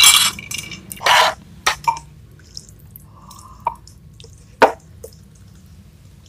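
Close-miked eating and drinking sounds: a swallow of the drink and the jar going down in the first second or so, then scattered small sharp clicks of chopsticks and a spoon against a ceramic bowl.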